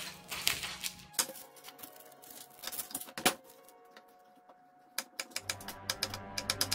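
Kitchen knife cutting garlic on a bamboo cutting board: scattered knocks of the blade on the board while the bulb is split into cloves, then from about five seconds in a quick run of chopping taps, several a second.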